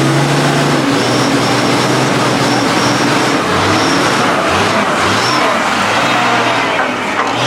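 A heavy truck's engine running under a dense, steady noise. Its note is clear for about the first second and then fades, with short rises in engine pitch a few seconds in.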